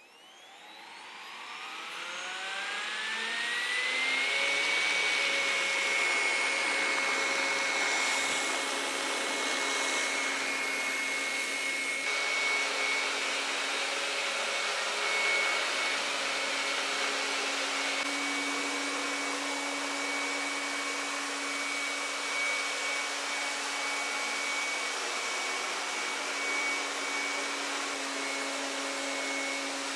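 Robot vacuum cleaner spinning up: its suction fan whine rises in pitch over the first four seconds, then runs steadily as a high whine over rushing air.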